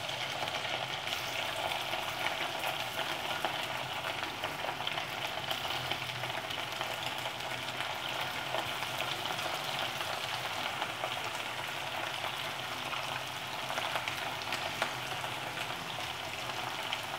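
Marinated chicken pieces deep-frying in hot oil in an iron kadai: a steady sizzle with fine crackling, kept up as more pieces are dropped in one by one.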